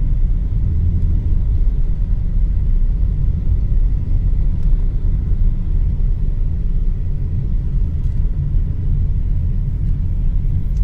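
A car driving along a street: a steady low rumble of engine and road noise.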